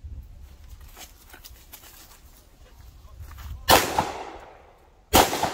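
Two pistol shots from a Canik 9mm, about a second and a half apart, the first a little past halfway and the second near the end, each trailing off in a short ringing echo.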